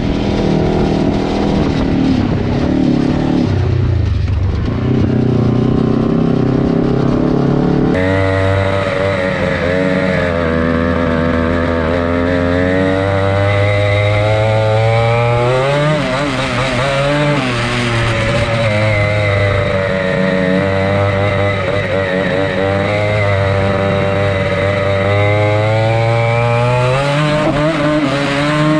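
Small off-road engines heard onboard while riding a dirt trail. For about eight seconds the engine note holds fairly steady. After an abrupt change, an engine revs up and down again and again as the throttle is worked and the gears are shifted.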